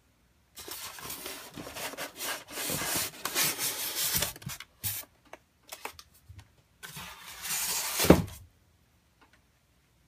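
Styrofoam packing insert scraping and rubbing against a cardboard box as it is pulled out, in two long stretches with scattered clicks and knocks between. The loudest moment is a sharp scrape about eight seconds in, after which it goes quiet.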